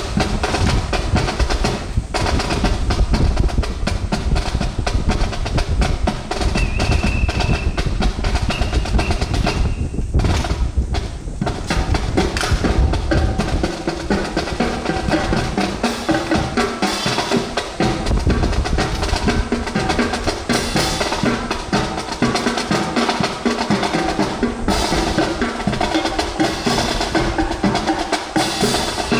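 Marching drum cadence: snare and bass drums playing continuous rhythmic patterns with rolls and sharp rim clicks, as the accompaniment to a rifle fancy drill.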